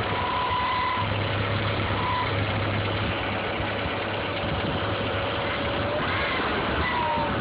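Audi A4 1.8T AEB turbocharged four-cylinder engine running steadily, with a thin whistling tone over it that drifts slightly in pitch and comes and goes. This is the strange noise the owner cannot locate, which appears only in frosty weather.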